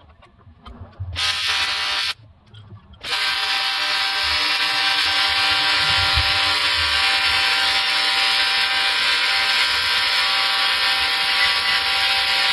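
AC TIG welding arc on aluminum from an ARCCAPTAIN TIG 200P welder, a steady electric buzz. A brief arc of about a second comes near the start, then a long unbroken arc begins about three seconds in.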